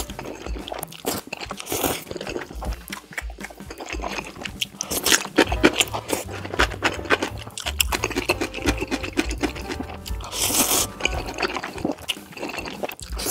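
Close-miked eating sounds of spicy instant ramen noodles being slurped and chewed, with crunching, over background music.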